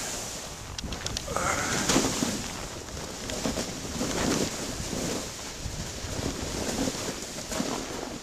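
Wind buffeting the microphone, an uneven rushing noise that swells and eases in gusts.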